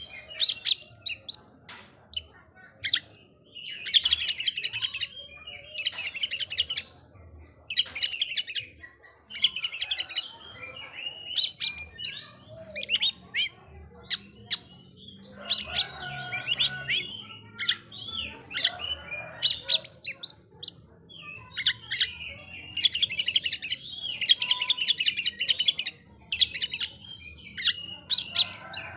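Oriental magpie-robin (kacer) singing: varied whistled notes and fast rattling trills in phrases about every one to two seconds, with short pauses between. This is the vigorous song used to provoke rival kacer into singing.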